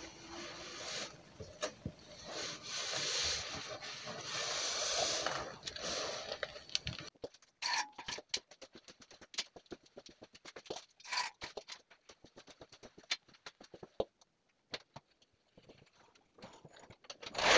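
Scraping and rustling of hands and tools working under a car at the transmission pan, with scattered metallic clicks. About seven seconds in it drops to faint scattered clicks and ticks with quiet gaps, and a louder sound rises right at the end.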